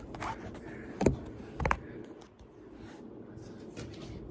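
Casablanca Panama ceiling fan running on high: a steady rush of air over a low motor hum. Two sharp knocks come about a second in and again half a second later.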